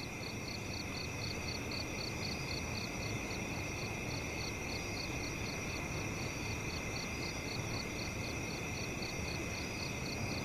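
Crickets chirping in a steady evening chorus, with an even, rapid pulse and a continuous high ringing.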